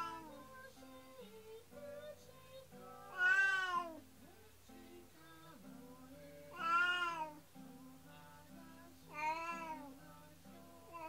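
Black cat meowing mournfully: about four long, loud meows roughly three seconds apart, each rising then falling in pitch, with another starting near the end, over soft background music. The owners take the crying as distress at the absence of its companion cat, taken away for surgery.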